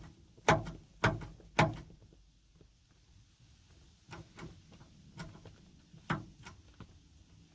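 Seatbelt shoulder strap being tugged, its retractor catching and locking with sharp clicks: three loud clicks in the first two seconds, then several fainter ones. The retractor locks as soon as the belt is pulled out, a fault that makes the strap almost impossible to use.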